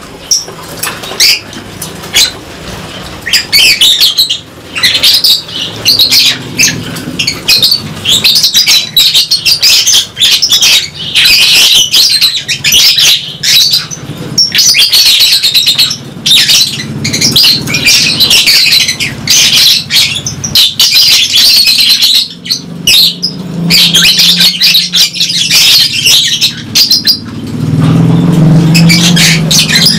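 A colony of lovebirds chirping and screeching continuously, many calls overlapping, with wings flapping now and then.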